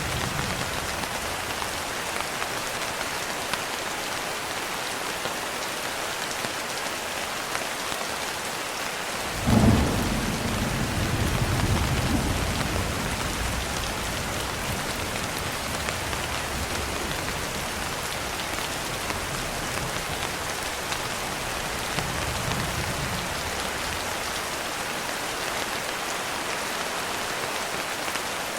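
Steady heavy rain hissing throughout. About a third of the way in, a sudden thunderclap rolls into a low rumble that fades over a few seconds. A fainter, distant rumble of thunder comes later.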